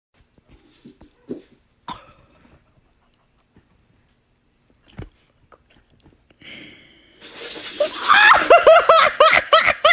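A person laughing hard in a rapid run of high-pitched bursts, starting about seven seconds in. Before that there are only a few soft knocks and rustles.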